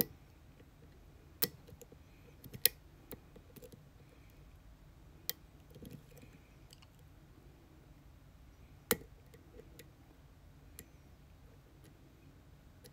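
A lock pick and tension wrench working the pins of a six-pin challenge lock: sparse, sharp metallic clicks at irregular intervals, with fainter ticks between them.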